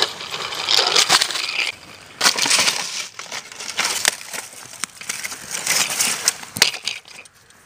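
Foam and plastic pieces of a wrecked RC plane crunching and crackling under a child's bicycle tyres, in irregular bursts.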